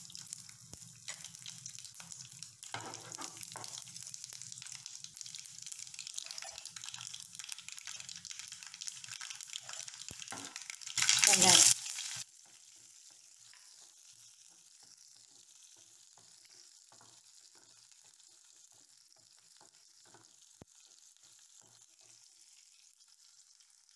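Hot oil sizzling and crackling as mustard seeds, urad dal and dried red chillies fry in a pan for a South Indian tempering, with many small pops. About eleven seconds in comes a brief, much louder burst of sizzling as sliced shallots go into the oil. After that the sizzle is quieter, with a spatula stirring.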